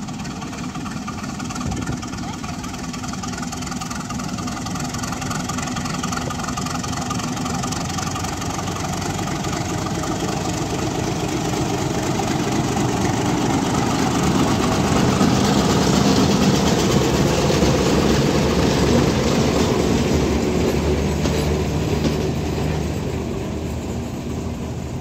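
Diesel locomotive engine working hard as its throttle is notched up to pull a passenger train away. It grows louder as the locomotive draws near, is loudest as it passes about halfway through, then eases as the coaches roll by.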